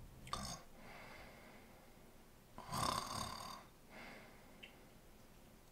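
A woman's mock snoring, made while she pretends to doze off: a short snore about a third of a second in and a longer, louder one around three seconds in.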